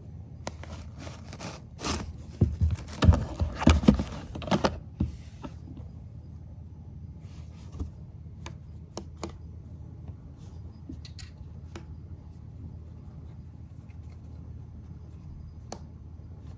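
A kitten pawing and scratching at a cardboard tissue box: a flurry of scrapes and knocks about two to five seconds in, then scattered light taps.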